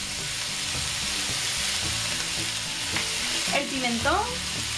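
Chicken breast strips frying in oil in a frying pan over high heat, a steady sizzle.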